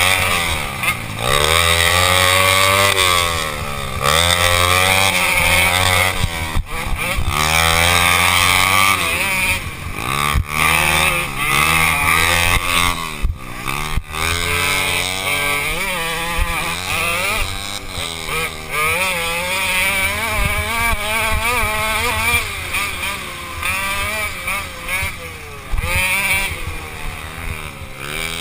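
Small off-road engine revving up and down over and over as the throttle opens and closes, heard close up from the rider's helmet.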